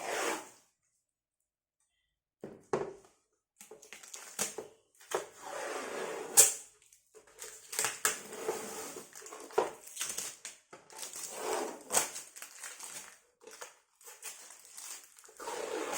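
Irregular bursts of crackling and rustling with a few sharp clicks, typical of plastic and cardboard packaging being pulled off and handled as a folding laptop table is unpacked.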